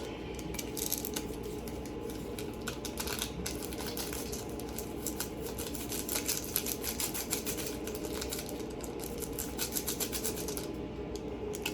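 Rapid light clicking and crinkling of a plastic sauce packet being torn, squeezed and handled, over a steady low hum.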